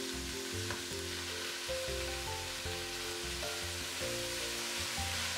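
Chopped spinach sizzling in hot olive oil with sautéed onion and garlic in a stainless steel pot, stirred with a wooden spoon as it wilts. A steady frying hiss, with background music playing a melody of held notes.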